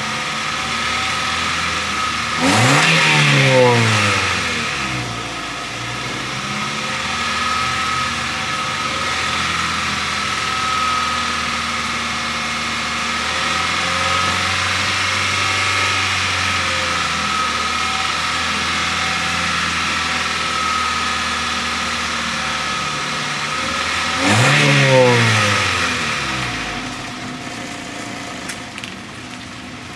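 1.5-litre car engine heard at the tailpipe, revved sharply twice, about two and a half seconds in and again near the end, each rev falling back over a couple of seconds. In between it runs steadily above idle, and it settles back to idle at the end.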